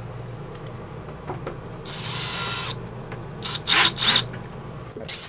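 Cordless drill driving a screw up into a ceiling skylight's trim in short trigger bursts, three loud ones close together a little before the end, over a steady low hum.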